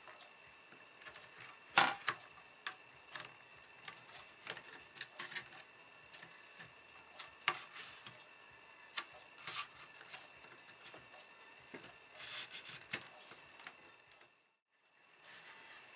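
Hands working on a laptop's insides: scattered small clicks, taps and rubbing of plastic and metal parts over a faint steady hiss. The sharpest click comes about two seconds in, and the sound drops out briefly near the end.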